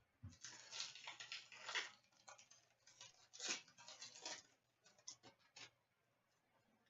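Trading cards being handled: faint scraping and rustling of cards sliding against one another in short spells, dying away about two-thirds of the way through.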